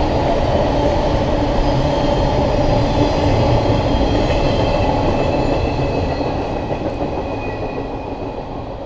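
Double-stack container train's cars rolling over the rails with a steady rumble of wheels. It fades over the last few seconds as the end of the train passes.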